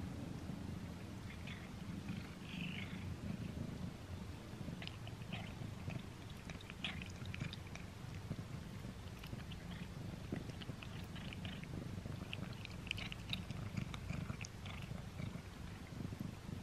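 Domestic cat purring steadily close to the microphone, with scattered small clicks of it chewing a string-shaped cat treat.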